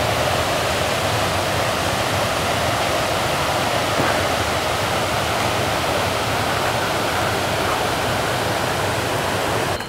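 Fast stream of white water rushing over rocks, a steady, loud rush that cuts off suddenly at the very end.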